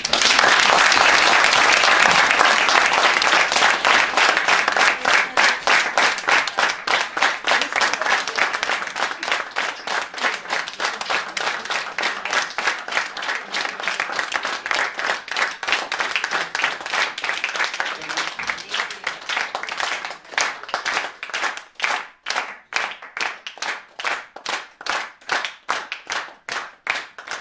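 Audience applauding, dense and loud at first. About twenty seconds in it turns into rhythmic clapping in unison, roughly two to three claps a second.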